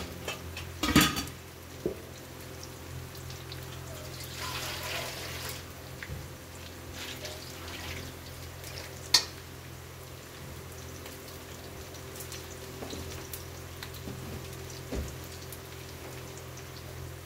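Potatoes and onion frying in oil in a kadhai: a low, steady sizzle over a faint hum, with a sharp knock about a second in and another around nine seconds.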